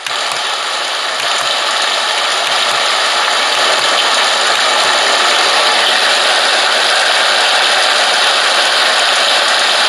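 Recorded rain sound played through the small speaker of a Homedics Sound Spa Rejuvenate white noise machine: a steady pitter-patter hiss that grows a little louder over the first few seconds, then holds even.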